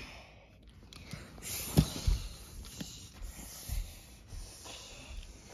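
Handling and movement noise: scattered soft thumps and rustling as children shift about and carry toy trucks, with the loudest knock about two seconds in.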